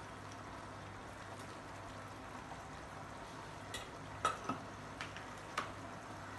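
Faint steady hiss of a pot of rice and water heating on the stove, with a handful of light clicks and taps of kitchen utensils from about four seconds in.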